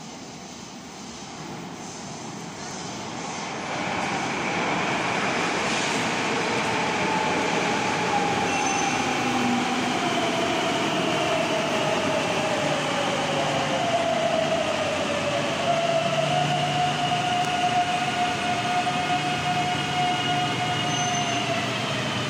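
Madrid Metro Serie 9000 electric train arriving at an underground platform. It grows louder as it approaches, then its motor whine falls in pitch as it brakes and holds a steady tone as it comes to a stop. A brief crack about six seconds in is a spark from the pantograph on the overhead line.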